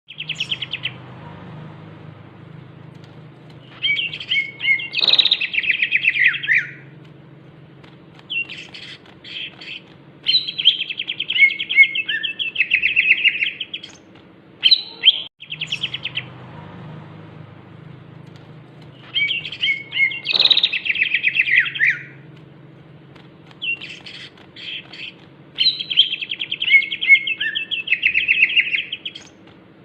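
Green leafbird (cucak ijo) singing in chattering bursts of rapid high notes, several phrases a few seconds long with short gaps between them. The same run of phrases comes round again about halfway through, over a faint steady hum.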